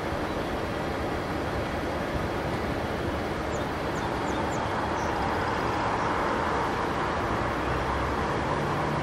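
Boeing 737 jet engines on final approach: a steady rushing noise that grows a little louder around the middle as the airliner nears. A few short high chirps from a small bird sound briefly about three and a half seconds in.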